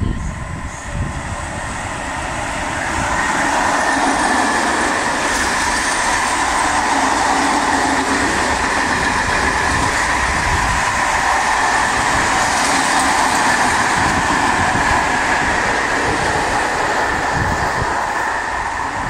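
Renfe freight train with an electric locomotive passing close by. Its wheels roll over the rails with a steady ringing tone. The sound swells about three seconds in, stays loud while the covered wagons go by, and eases a little near the end.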